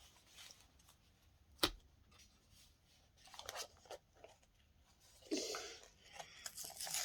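Quiet handling of small toys and packaging: a single sharp click about a second and a half in, then bouts of rustling and scraping.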